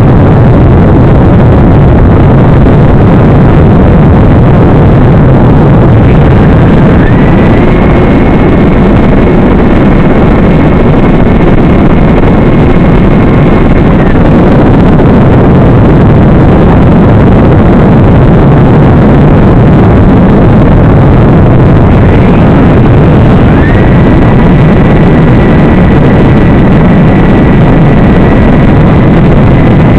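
Electric motor and propeller of an FPV aircraft in flight, heard through the onboard camera's microphone as a loud, steady rush with a thin whine. The whine steps up in pitch about 7 seconds in, drops back about 14 seconds in, and steps up again about 23 seconds in, following throttle changes.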